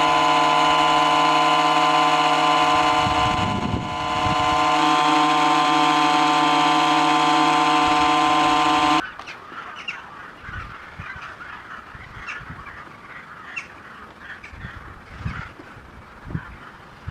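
The homemade refrigerant cooler's compressor running with a loud, steady hum that cuts off suddenly about nine seconds in. Faint scattered clicks and light handling noise follow.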